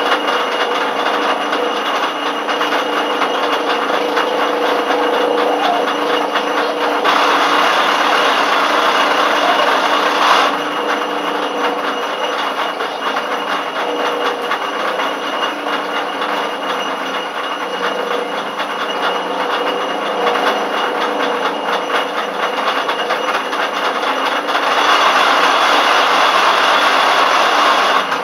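Schaublin 102 CNC lathe running with a steady whine while a threading insert cuts an M27x1.5 thread in repeated passes. Twice, about seven seconds in and again near the end, the cutting noise grows louder for about three seconds.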